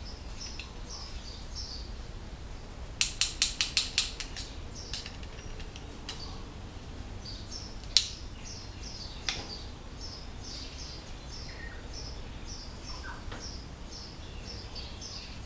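A bird chirping over and over in short high notes, with a quick run of about eight sharp clicks around three seconds in and single sharp clicks about eight and nine seconds in.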